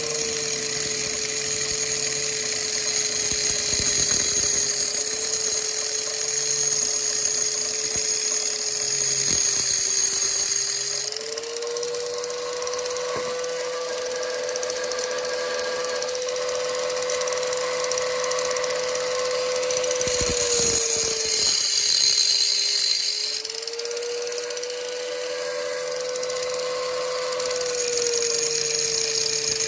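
Warrior angle grinder running with a steady whine while its grinding wheel cuts. The whine drops slightly in pitch under load, with a hiss in the first third, briefly about two-thirds through, and again near the end.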